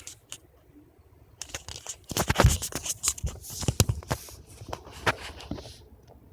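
Rustling and scratching handling noises: a quick run of sharp scrapes and crackles starting about a second and a half in and dying away near the end.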